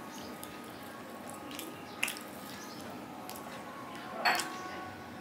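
A person chewing food with small wet mouth clicks and smacks. A sharper smack comes about two seconds in and a louder one just after four seconds.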